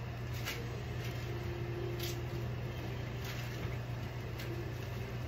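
Steady low mechanical hum in the kitchen, with a few faint light clicks as a wooden spatula stirs greens in a wok.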